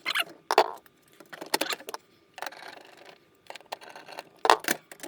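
Irregular clicks, knocks and short scrapes of parts being fitted back onto a VHS video recorder by hand.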